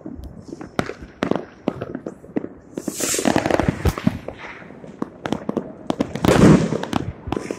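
Fireworks and firecrackers going off across the city: a dense run of sharp cracks and pops, with longer, heavier bangs about three seconds in and again near the end, the loudest toward the end.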